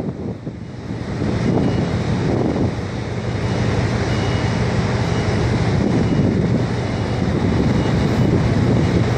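Wind buffeting the microphone over a steady low machinery hum from the port and ship.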